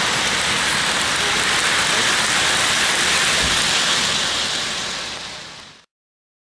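A steady hissing noise with no pitch or rhythm that fades over its last second and stops abruptly about six seconds in.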